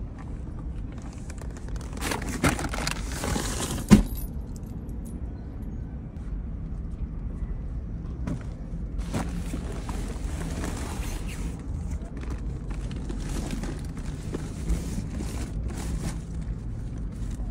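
Handling noises in a parked car as shopping is loaded: rustling of plastic carrier bags and clattering, with one sharp knock about four seconds in, over a low steady rumble.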